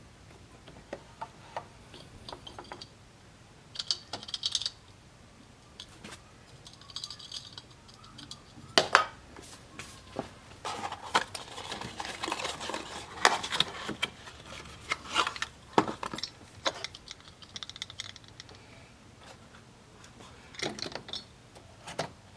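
Small clicks, light metallic clinks and rustling as a radiator cap is handled and a new one is fitted on the filler neck. The handling gets busier for a few seconds in the middle.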